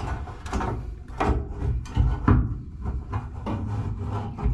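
Fuel pump access cover being lifted out of the trunk floor hatch: a string of sharp knocks, clicks and scraping as it is handled, over low rumbling handling noise.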